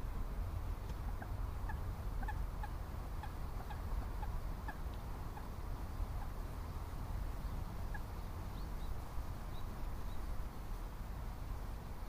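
A scattering of short, high bird calls, a few a second at times and mostly in the first eight seconds, over a steady low rumble.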